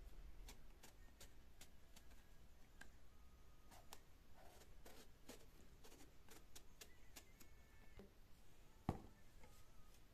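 A small knife scraping strips of skin off an eggplant in short, soft, repeated strokes, with one louder knock about nine seconds in.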